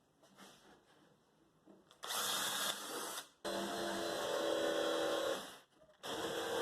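A handheld power tool running in short bursts: it starts about two seconds in, cuts out briefly, runs again for about two seconds with a steady motor hum, pauses, and starts once more near the end.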